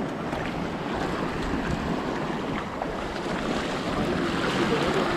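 Sea waves washing against the shore, with wind buffeting the microphone, a steady noisy rush.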